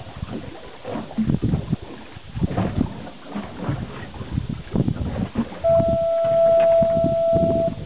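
Gusty wind noise on the microphone aboard a boat at sea. About five and a half seconds in, a steady high beep starts and holds for about two seconds; it is the loudest sound here.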